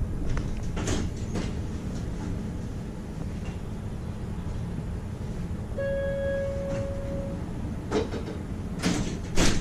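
Bombardier Variotram low-floor tram standing at a stop, with a steady low hum inside the car. Around the middle a single electronic tone sounds for about a second and a half, and near the end come a few sharp knocks, the last the loudest.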